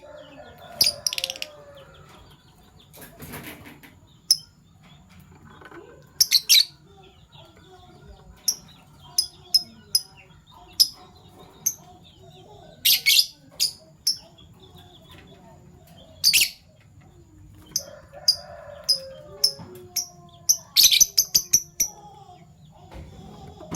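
Fischer's lovebirds chirping: short, high, sharp calls, some single and some in quick runs. A brief flutter of wings comes about three seconds in.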